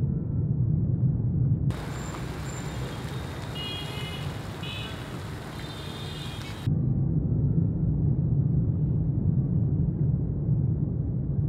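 Low, steady rumble of a moving motorbike. About two seconds in it gives way to open-air market ambience with faint high-pitched calls, and the rumble returns about two-thirds of the way through.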